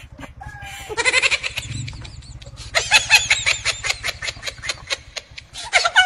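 Chickens calling: a rooster crows about a second in, followed by a long run of rapid, repeated clucking calls.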